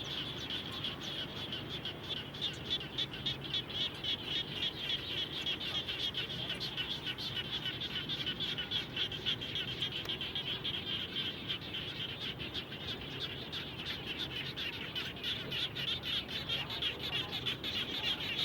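Frogs calling together after rain in a dense, continuous chorus of rapid pulsing high-pitched calls that overlap without a break.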